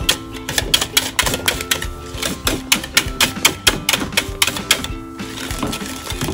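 Wire whisk beating thick custard cream in a copper pot, clacking against the pot's side about four times a second, with a short break near the end. Background music with held notes plays under it.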